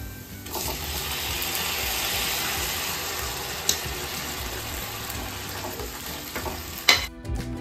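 Marinated chicken pieces sizzling as they are spooned into hot oil with fried onions: a hiss that starts suddenly about half a second in and slowly dies away, with a single click midway.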